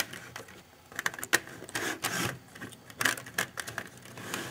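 Irregular small clicks and light clatter of plastic and metal as an Athearn SD40 model locomotive chassis is handled and its wheels are seated on the rails of model track.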